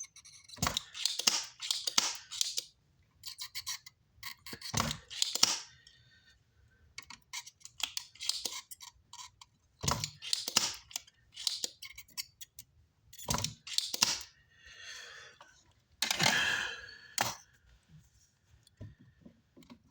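Hand tools clicking and scraping on an amplifier circuit board during solder repair work. The sound is a run of short, irregular clicks and scratchy rustles with a few duller knocks and brief quiet gaps.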